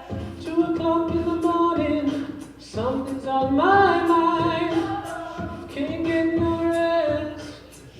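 A cappella group singing in harmony with no instruments, several voices holding long sustained chords that shift every second or two.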